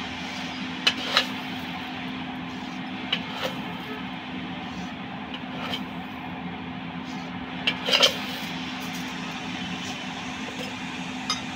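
A steady mechanical hum with one low, unchanging tone runs throughout. A handful of light clicks and taps come over it, the loudest pair about eight seconds in.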